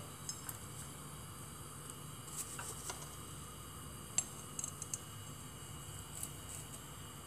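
Faint, scattered light clicks and rustles of dried rose petals being handled and scooped with a metal spoon into a small glass cup, over a steady low hum.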